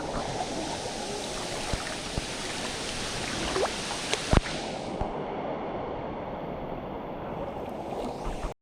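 Steady rush of falling water from a waterfall, its higher hiss fading about five seconds in, with a few faint knocks.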